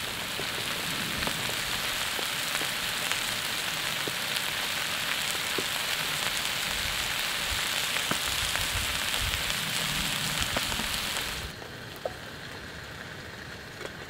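Steak, onions and mushrooms frying in a pan over a wood-burning firebox stove: a steady sizzle that cuts off suddenly near the end, leaving a quieter background hiss.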